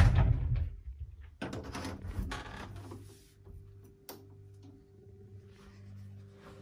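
A built-in wardrobe door being handled: scraping and rustling in the first few seconds and a single sharp knock about four seconds in, over a faint steady hum.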